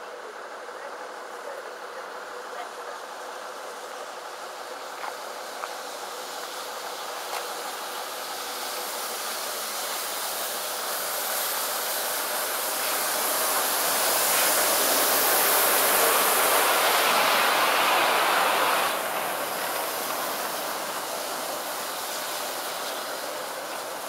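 LNER Peppercorn A1 Pacific steam locomotive 60163 Tornado, a three-cylinder 4-6-2, running slowly into the platform with a steady hiss that builds as the engine draws close, is loudest for a few seconds, then cuts off suddenly about three-quarters of the way through.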